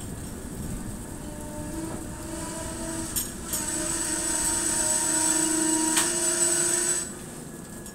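A passenger train's coaches running on a curve, the wheels squealing in a steady pitched whine over the rumble. The squeal builds from about two seconds in and stops suddenly about seven seconds in.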